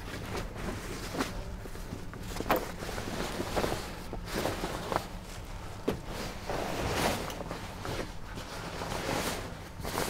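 Canvas rain cover of a truck being unfastened and pulled back: irregular rustling and scraping swishes, about one a second.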